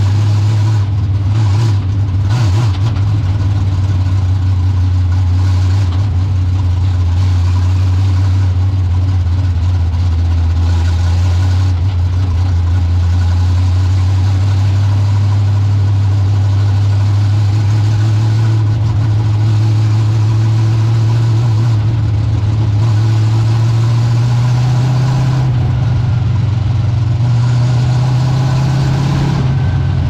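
Dirt-track stock car's engine heard from inside the cockpit, running steadily at low revs, about 1,500 to 2,000 rpm. Its pitch rises a little near the end.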